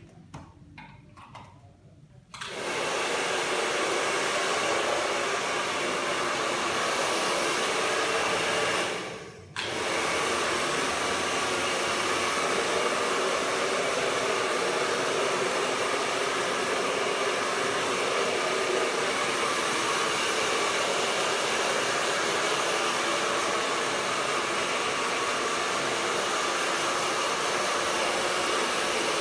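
Handheld hair dryer switched on about two seconds in and running steadily as it blows the client's damp hair ends dry. It cuts out briefly about nine seconds in and starts again.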